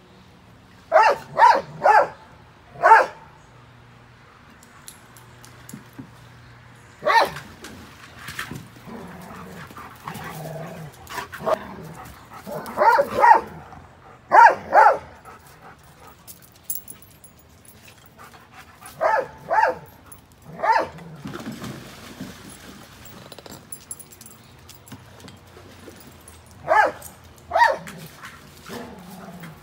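A dog barking, in groups of one to three barks every few seconds.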